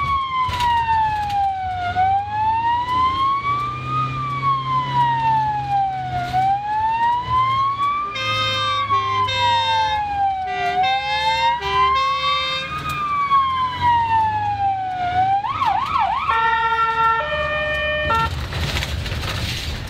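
Hungarian ambulance sirens heard from inside a following ambulance: a slow wail rising and falling about every four seconds, joined for a few seconds about halfway by a second siren's stepped tones. Near the end the siren switches to a brief fast yelp and then stepped tones, and a loud rushing noise covers everything in the last two seconds.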